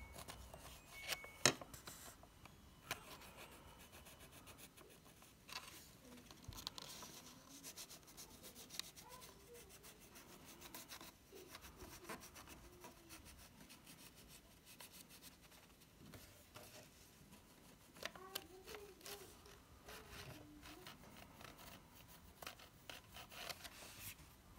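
Faint scratching of a pencil tracing along a paper pattern laid on a wooden block, with scattered small clicks and taps of hands and paper; one sharper click about a second and a half in.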